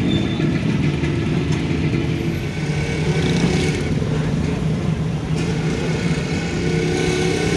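Car engine and surrounding road traffic in a jam, heard from inside the car: a steady low rumble.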